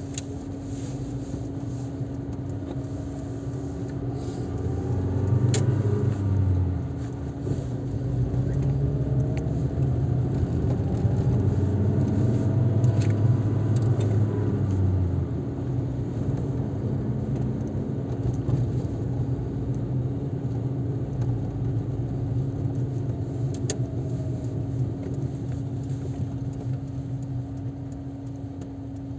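Car engine and tyre noise heard from inside the moving car, with a steady hum underneath. The engine note rises as the car accelerates about four seconds in and again from about eight to fifteen seconds.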